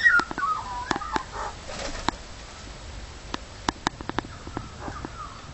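Magpies calling close by: a falling call right at the start, then soft quiet warbling in the second half, among scattered sharp taps.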